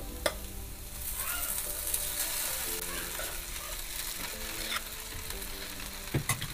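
Chopped vegetables frying with a steady sizzle in a nonstick pan, stirred by a wooden spatula, with a couple of sharp spatula clicks against the pan. About four seconds in, cooked broken wheat (daliya) is tipped into the pan.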